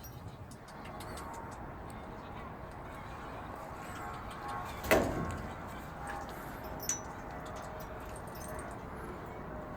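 One sharp clank about halfway through, like a cage or door being knocked, with a lighter click a couple of seconds later, over faint, low-level dog sounds.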